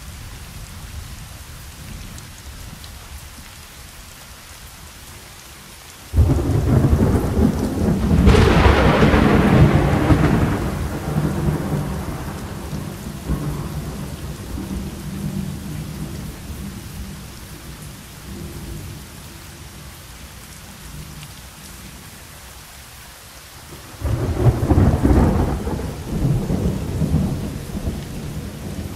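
Thunderstorm: steady rain with two claps of thunder. The first breaks suddenly about six seconds in, cracks loudest a couple of seconds later and rumbles away over several seconds. The second starts abruptly near the end and fades the same way.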